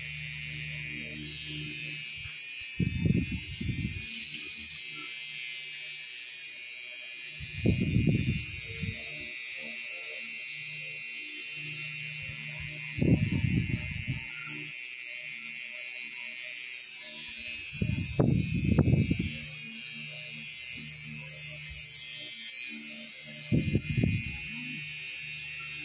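Cosmetic tattoo machine (permanent-makeup pen) running with a steady, high-pitched buzzing whine. Low rustling bursts come about every five seconds and are louder than the buzz.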